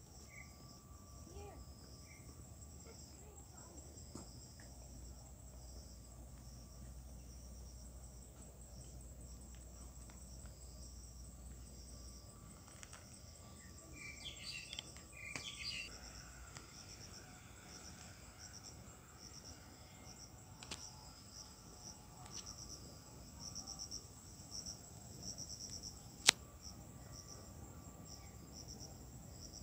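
Insects chirping in the garden vegetation: a steady high-pitched hiss with a quick pulsing chirp over it, growing more distinct near the end. A single sharp click cuts through late on.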